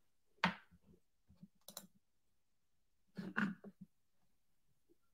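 A few faint, separate clicks from a computer mouse, the loudest about half a second in and a short cluster of them a little past three seconds.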